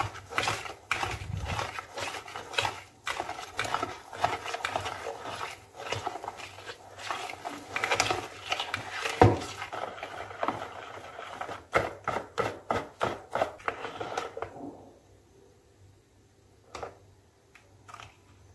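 Wire balloon whisk beating pancake batter of eggs, sugar and flour in a bowl, the wires clicking and scraping against the bowl in rapid strokes. The whisking stops about fourteen and a half seconds in, followed by two light taps.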